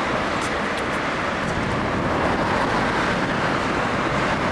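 Steady street traffic noise from a busy road and tram line, with a Tatra tram running past close by. A few faint high-pitched squeaks come in the first second or so.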